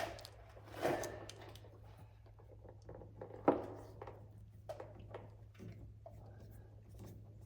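Scattered clicks, knocks and light rubbing from parts and small hardware being handled, with one sharper knock about three and a half seconds in, over a steady low hum.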